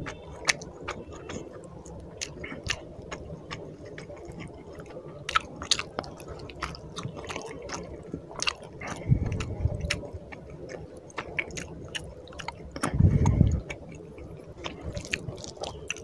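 Close-miked chewing of rice and fish curry, with wet squishing and sticky clicks from a hand mixing rice into the gravy. Two low muffled bumps stand out, about nine and thirteen seconds in.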